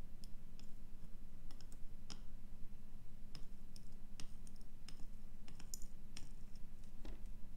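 Light, irregular clicks and taps as a small circuit board is handled and a soldering iron tip works the pins of a surface-mount chip, over a steady low hum.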